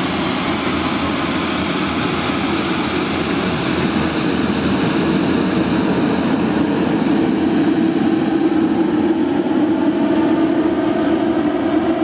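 Scania 94D diesel sweeper truck working along the kerb: a steady mechanical drone of the engine and sweeping gear, with its rotating brushes scrubbing dust off the road, growing a little louder partway through.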